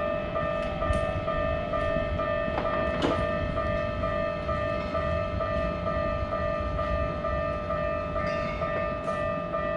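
Railroad crossing alarm ringing with a steady, evenly repeating electronic ding over the rumble of a passing train, with a brief sharp sound about three seconds in.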